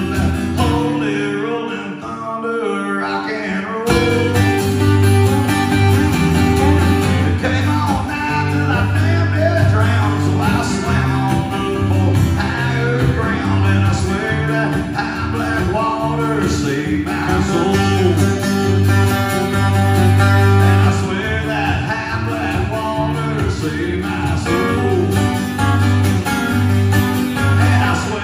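Live country music from two acoustic-electric guitars, strummed and picked, with a man singing. About four seconds in, the playing fills out and gets louder.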